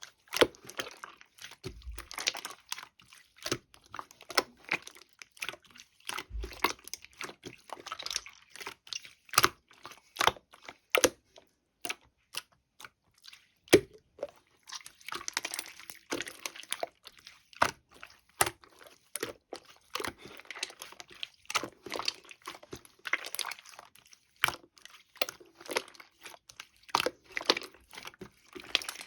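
Close, irregular crinkling and crunching: many sharp clicks and short crackles with no steady rhythm.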